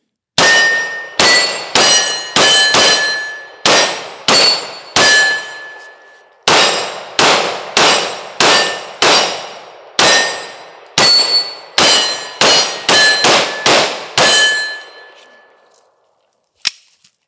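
SIG P365 Fuse 9mm pistol fired rapidly in strings with short pauses, about two dozen shots. Most shots are followed by the ringing clang of steel targets being hit.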